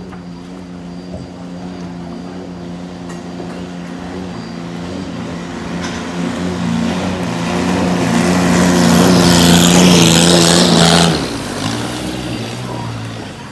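A small speedboat's engine running at speed as the boat races past, growing louder to a peak with the rush of its spray. About three-quarters of the way through it drops off suddenly to a lower hum.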